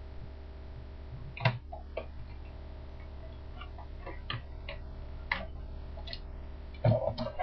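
Plastic parts of a Transformers Mixmaster cement-mixer toy clicking and snapping as they are moved into place by hand: scattered single clicks, then a quick cluster of louder clicks near the end, over a steady low hum.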